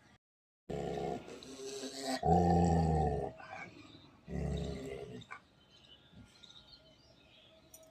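An animal's voice: three loud, drawn-out calls, each about a second long.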